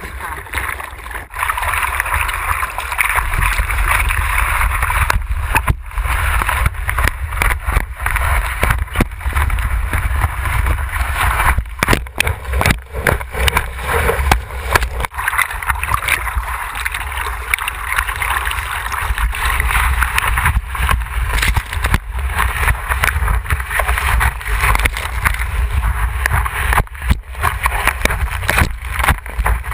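Seawater rushing and splashing over a surfboard and the camera mounted on its nose, with a steady low rumble and a hiss of spray. The sound cuts out briefly many times.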